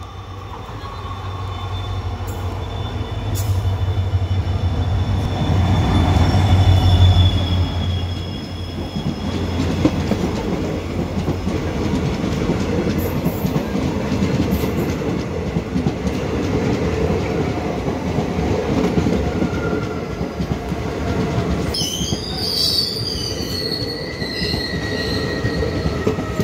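A passenger train passing close by on the adjacent track. A deep hum swells to its loudest about seven seconds in as the locomotive goes by, then the coaches roll past with a steady rumble of wheels on the rails. There is a high wheel squeal near the end.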